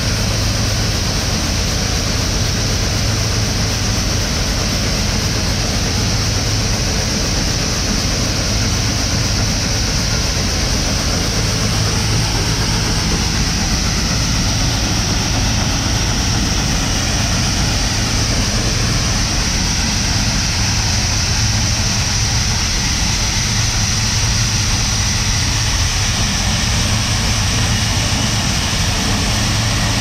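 Gleaner combine running steadily while its unloading auger pours soybeans into a grain wagon: a constant low engine hum under a loud, even rush of machinery and streaming grain.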